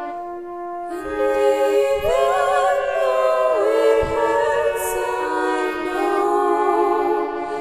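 Slow, classical-style song: held notes, then a singing voice with vibrato entering about two seconds in, layered like a small choir.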